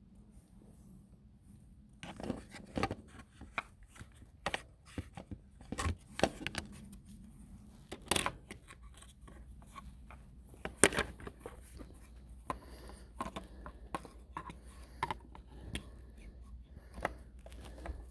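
Irregular clicks, scrapes and light rattles of chainsaw bar and chain being handled and fitted onto the saw, starting about two seconds in, with the sharpest clicks about eight and eleven seconds in.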